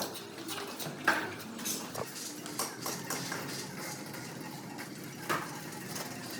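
Irregular clinks and knocks of hard objects striking, with a sharp one about a second in and another near the end.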